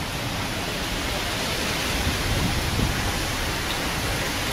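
Steady rain pouring down, an even hiss, with a brief louder low rumble about two seconds in.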